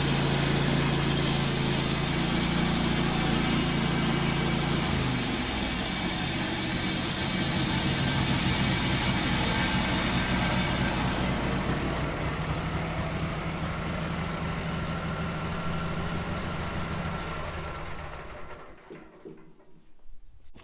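Wood-Mizer LT15 bandsaw mill running with its bandsaw blade cutting through a hard maple log. The engine note drops about five seconds in, and the cutting hiss fades out about eleven seconds in as the slice comes off. The mill then runs on more quietly and winds down to a stop near the end.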